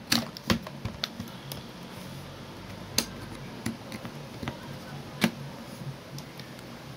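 Plastic clicks and knocks of a Charger Doctor USB meter and cable being unplugged from one Apple USB power adapter and plugged into another. About eight separate clicks, the sharpest just after the start, about three seconds in and about five seconds in.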